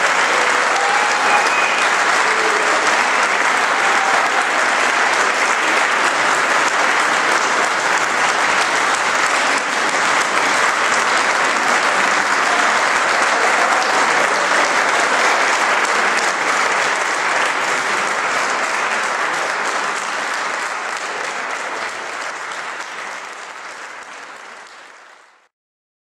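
Audience applauding, a steady clapping from a large crowd that fades away and stops near the end.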